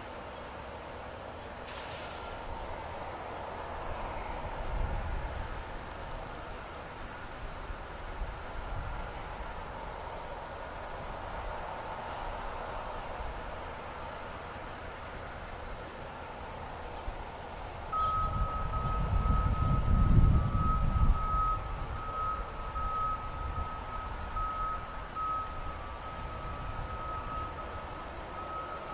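Crickets and other insects trilling steadily, over the low rumble of EMD diesel locomotives, which swells briefly about five seconds in and louder for a few seconds past the middle. A thin, steady high tone starts about two-thirds of the way through and runs on.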